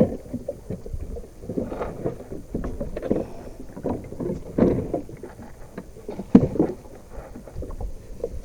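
Small fishing boat at sea: water slapping against the hull, with irregular knocks and thumps, the loudest about six seconds in.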